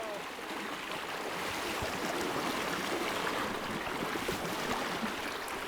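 Steady rush of river current around the canoe, with some wind.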